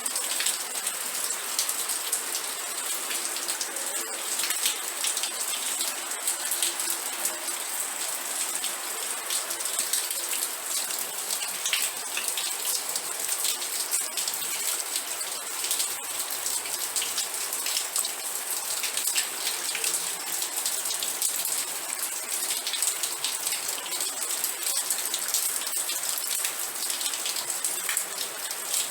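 Steady rain falling, a dense hiss of drops pattering on a surface with many fine individual drop ticks, unchanging throughout.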